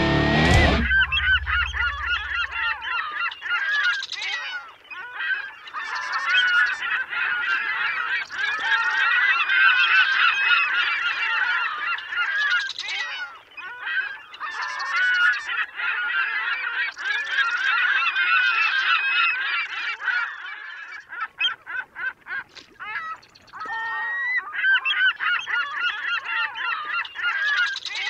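A large flock of birds calling, many short overlapping calls at once, thinning out briefly about two-thirds of the way through.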